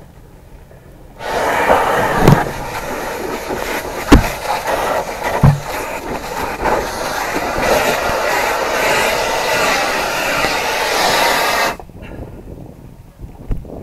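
Fire hose nozzle opened up, the water stream hissing loudly for about ten seconds and then shut off abruptly, with three sharp knocks during the spray.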